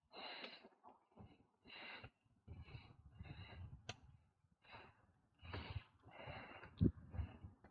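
Cyclist breathing hard while pedalling uphill, heavy breaths in and out about once a second, over a low rumble. A single sharp knock near the end is the loudest sound.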